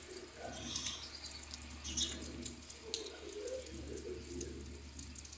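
Doves cooing in low, repeated notes over rain pattering and dripping, with scattered sharp drip ticks and a faint steady low hum underneath.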